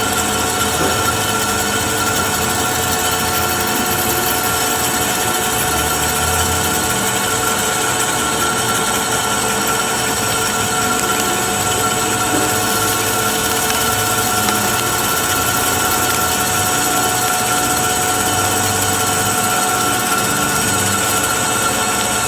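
A metalworking machine tool running steadily under power, with a constant whine over a rough mechanical hum, as in drilling or boring metal.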